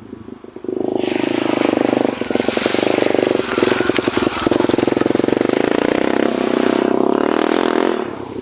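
Honda XR250 Tornado's single-cylinder four-stroke engine running loud as the dirt bike passes close by, coming up sharply about a second in and fading away near the end.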